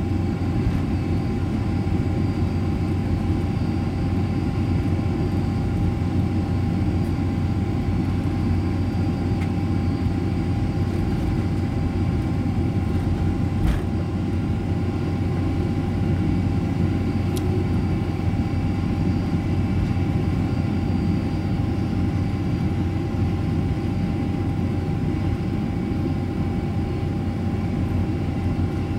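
Steady cabin noise inside a Boeing 747-400 taxiing after landing: a low rumble from the idling engines and air-conditioning, with a thin steady whine over it.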